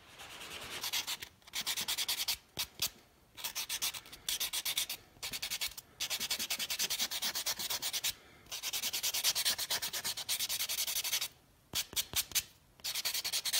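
White nail buffer block rubbed briskly back and forth over fingernails, in runs of quick scratchy strokes broken by short pauses, buffing off the leftover dip powder residue.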